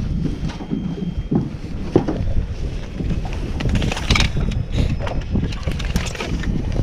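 Wind buffeting the microphone as a steady low rumble, with scattered light knocks and clatter of handling, a small cluster of them about four seconds in.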